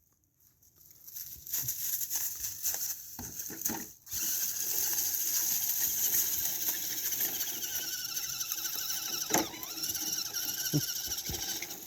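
Redcat Everest 10 RC crawler's electric motor and gears whining as it drives, the pitch wavering with the throttle, with a couple of sharp knocks near the end.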